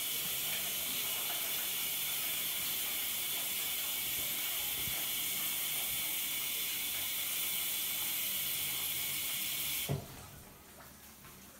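Bathroom sink faucet running water into the basin in a steady hiss, turned off about ten seconds in with a short knock.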